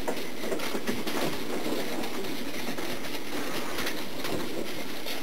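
Charcoal-fired bloomery furnace burning under forced air: a steady rushing noise with faint crackles now and then.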